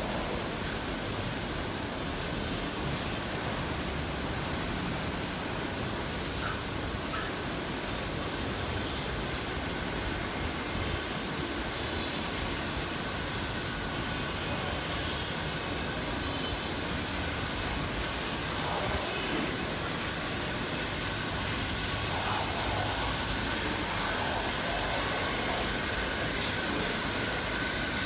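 Steady rushing noise of a large cattle shed, with its many ceiling fans running. A faint thin whine rises a little in the later part.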